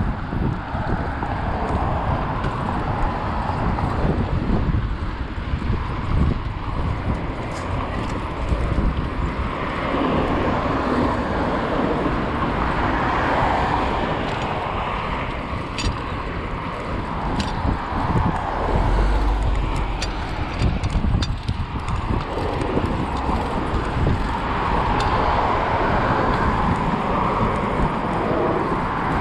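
Wind and road noise on a chest-mounted action camera's microphone while riding a bicycle along a city street: a steady rush with heavy low rumble and a few sharp clicks in the middle.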